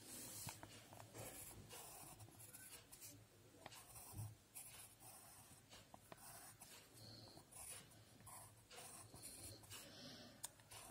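Pencil scratching faintly on paper in short, irregular strokes, with a few light ticks as the tip touches down.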